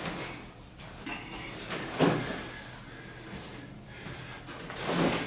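Handling noise from a canvas swag tent being unfolded and pulled into shape: rustling fabric and a few short knocks from its frame. The loudest knock comes about two seconds in.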